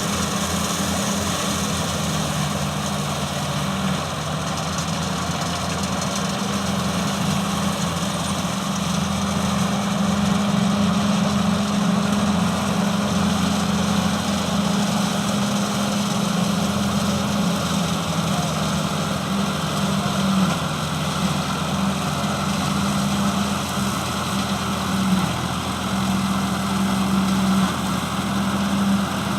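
An engine running steadily under a continuous drone, its pitch wavering slightly now and then.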